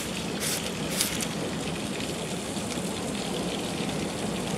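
Heavy rain falling on pavement and lawn, a steady hiss, with two brief louder swells about half a second and a second in.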